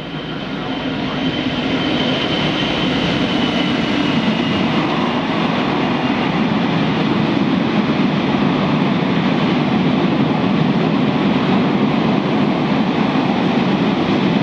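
EWS Class 66 diesel locomotive (a two-stroke V12) hauling a loaded stone train of hopper wagons past. The sound builds over the first couple of seconds as the locomotive arrives, then holds as a steady, loud rumble of the engine and the wagon wheels on the rails.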